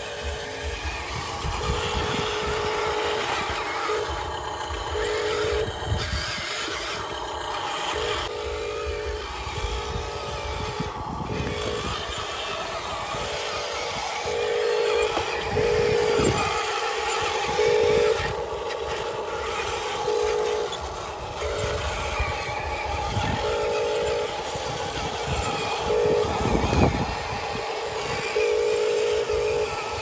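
Radio-controlled dump truck's electric drive motor and gearbox whining in short on-off bursts as the throttle is worked, with the low rumble of the truck moving over dirt.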